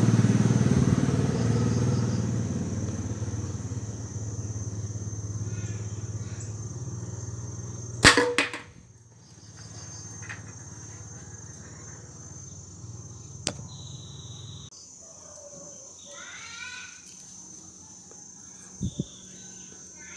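A homemade forked-branch slingshot shoots a folded-paper pellet. A sharp double crack about eight seconds in is the shot striking a cardboard chips can and knocking it over onto the tile floor. A motorcycle engine runs in the background at first and fades away.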